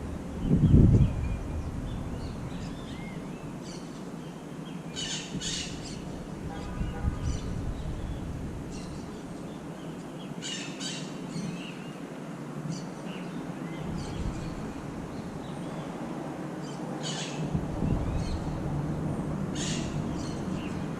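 Wild birds calling outdoors: one bird gives a short, high double call four times, with fainter chirps between. A loud low rumble about a second in.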